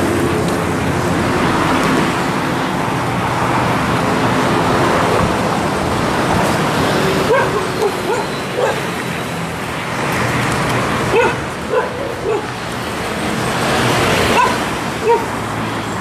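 A dog barks and yips in short calls many times in the second half, over a steady rush of traffic noise and a low engine hum that is strongest in the first few seconds.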